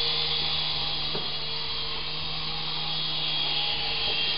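Syma S108G mini RC helicopter in flight, its small electric motors and coaxial rotors whirring steadily.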